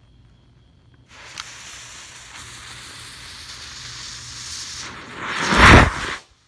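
Firework rocket's fuse catching and sizzling steadily for about four seconds, then the rocket lifting off with a louder rushing whoosh that cuts off abruptly just before the end.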